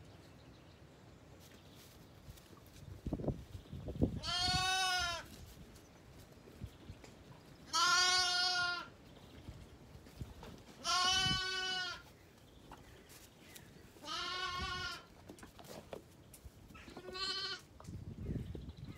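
Zwartbles lambs bleating: five calls of about a second each, a few seconds apart, the last one shorter. Soft low knocks between the calls.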